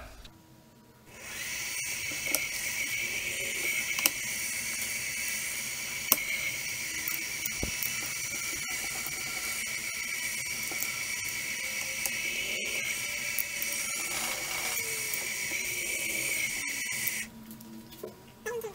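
Milling machine spindle running with a steady high-pitched whine while an end mill faces the sawn face of an aluminium part. The whine stops abruptly near the end.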